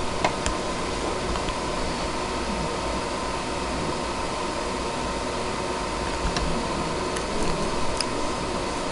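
Steady background hiss with a faint thin hum running through it, and a few faint light clicks scattered through it, the clearest about six and eight seconds in.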